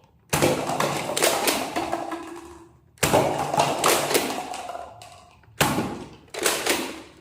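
Toy gun firing four shots, each a sharp bang that fades away over a second or two; the last two come close together near the end.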